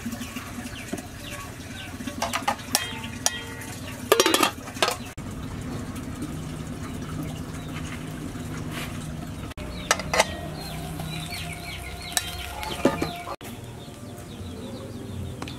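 Chickens clucking, with a few short metallic clatters of an aluminium cooking pot and its lid; the loudest clatter comes about four seconds in.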